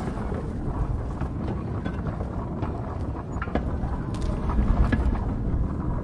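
Hand cart rolling on rails: a steady low rumble of the wheels on the track, with a few scattered clicks and knocks and faint short squeaks.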